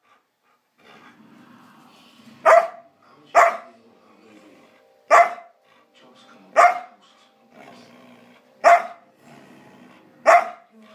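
A Samoyed barking: six sharp, loud barks spaced one to two seconds apart, the first about two and a half seconds in.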